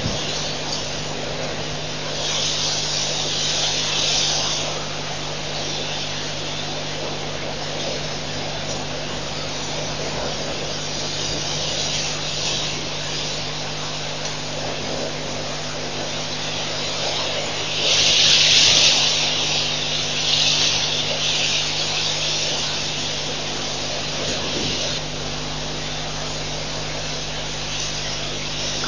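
Steady outdoor night ambience from a waterhole camera's microphone: a constant hiss with a low electrical hum, and a high buzzing hiss that swells for a few seconds at a time, loudest a little past the middle.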